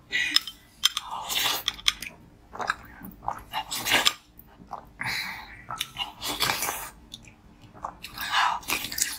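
Crunchy biting and chewing of slushy red ice crystals off a spoon, in a run of short crackling crunches about once or twice a second.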